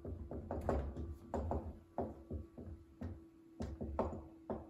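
Dry-erase marker writing on a whiteboard: an irregular run of short taps and strokes as the letters are written, with soft low knocks from the board.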